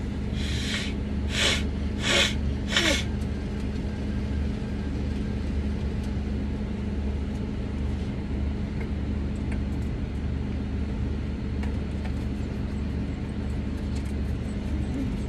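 Car engine idling, heard from inside the cabin as a steady low hum. Four short bursts of hiss come in the first three seconds.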